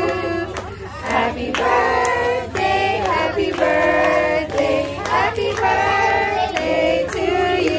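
Several people singing together, with hands clapping along.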